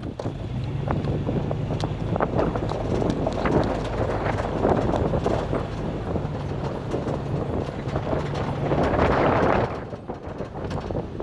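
Chevy Avalanche Z71's V8 engine running steadily while the truck crawls over rocky ground, with scattered knocks and crunches from the tyres and body on the rocks. Wind buffets the microphone.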